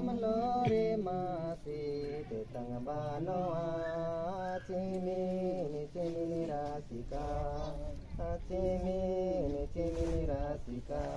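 Voices singing a slow, chant-like song in long held notes that step from pitch to pitch, with lower and higher voices together.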